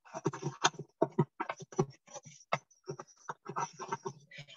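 Pestle grinding cloves, cubeb peppercorns and saffron in a small mortar: quick, irregular knocks and scrapes, several a second.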